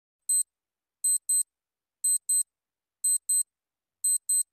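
Countdown-timer clock-ticking sound effect: crisp, high ticks, one at first and then a double tick about once a second.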